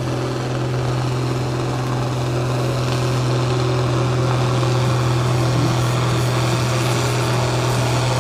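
IHC 1455's six-cylinder turbo diesel running flat out under full load as the tractor drags a tractor-pulling sled, its engine note holding steady and loud.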